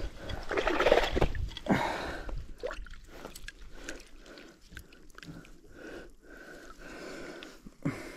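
Water splashing and sloshing as a landing net holding a rainbow trout is dipped into the shallows at the bank. It is loudest in the first two seconds, then fades to quieter handling sounds.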